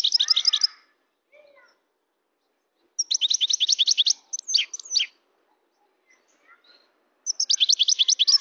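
European goldfinch singing in three bursts of rapid, tinkling twitter: one at the start, one about three seconds in lasting two seconds, and one beginning near the end.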